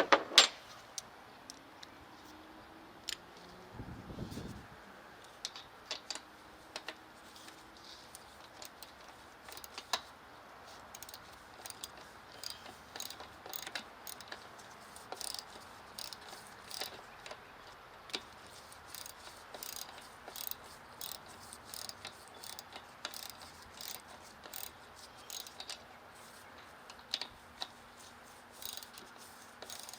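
Socket ratchet clicking in short irregular runs as the intake manifold's 8 mm and 10 mm bolts and nuts are loosened. There is a sharp clack at the very start and a brief low thump about four seconds in.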